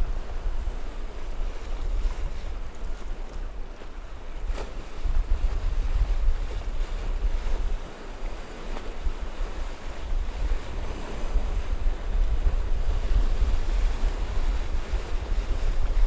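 Choppy sea surf washing and breaking, with wind buffeting the microphone in gusts. The loudness swells and eases, dipping briefly about three and eight seconds in.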